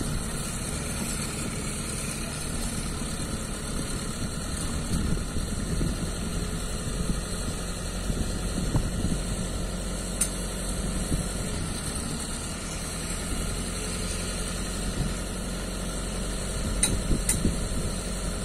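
A truck's diesel engine idling steadily, the kind of engine that runs the hydraulics of a truck-mounted crane while it unloads precast concrete slabs.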